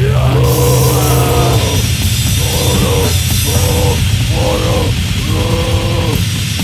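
A rock band plays loud, distorted heavy music in a live demo recording. A melodic line rises and falls over a dense, pounding low end.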